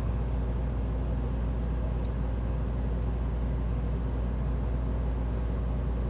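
Steady low background hum with an even hiss over it, and a few faint small ticks.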